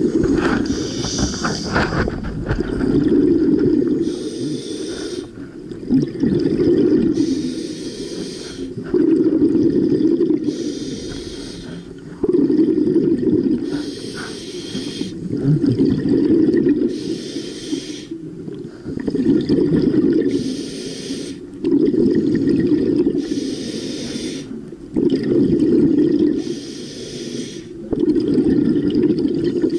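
Scuba diver breathing through a regulator underwater: a short hiss on each inhale, then a low bubbling rumble of exhaled air on each exhale, repeating steadily about once every three seconds.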